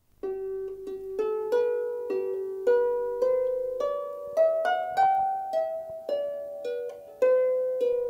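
Background music: a slow melody of single plucked notes, about two a second, each ringing out and fading.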